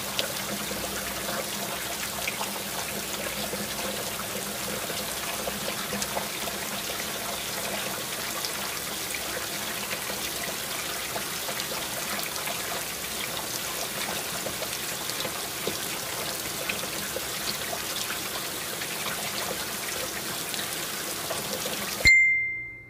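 Chicken afritada, a tomato-sauce stew of chicken, potatoes and carrots, boiling in the pan: a steady bubbling with many small pops. It cuts off suddenly near the end.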